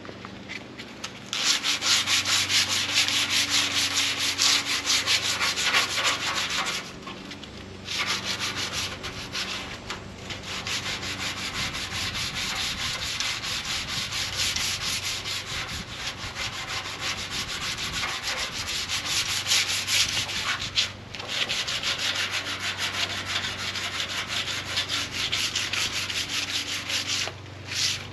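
Hand sanding of a 1991 Chevrolet Camaro fender with 220-grit sandpaper on a sanding block, in fast back-and-forth strokes that scuff the old paint so primer will stick, not cutting to bare metal. The sanding starts about a second in, stops for about a second some seven seconds in, and has a few brief breaks later.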